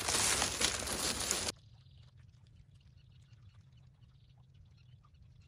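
Footsteps and rustling as someone pushes through tall dry grass and reeds, the stems crackling and snapping. This cuts off suddenly about a second and a half in, leaving a quiet background with faint scattered ticks and small chirps.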